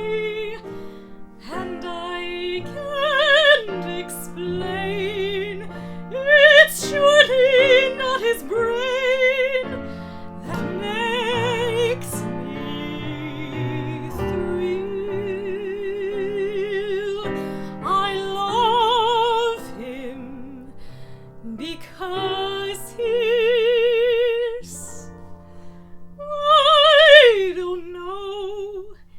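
A woman singing a standard over piano accompaniment, holding long notes with a wide vibrato.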